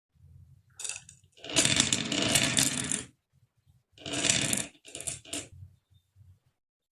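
Marbles rolling and clattering down a wooden HABA marble run, with a low rolling rumble and several bursts of dense rattling clicks; the longest and loudest burst lasts about a second and a half.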